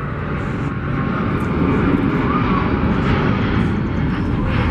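Boeing 777-200ER twin jet engines running at takeoff power, a loud low rumble that grows louder over the first couple of seconds as the airliner comes nearer.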